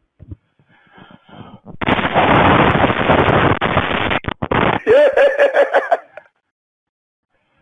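A loud, harsh burst of noise over a telephone line, lasting about two and a half seconds. It is followed by a short pitched wail that rises and falls, about a second long.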